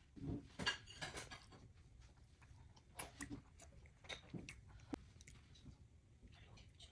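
A toddler chewing finger food: soft, irregular mouth and chewing noises with small clicks, a little busier in the first second or so and again about three seconds in.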